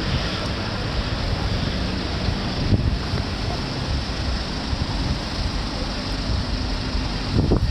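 Strong gusty wind buffeting the microphone: a steady loud rumbling rush with small surges.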